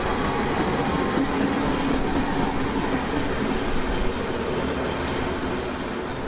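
MÁV class 628 (M62) diesel locomotive passing slowly, its two-stroke V12 diesel engine running with the wheels clacking over rail joints.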